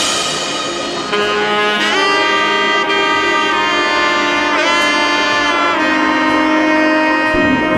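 Background music: a lead melody of long held notes that slide in pitch, with a low beat coming back in near the end.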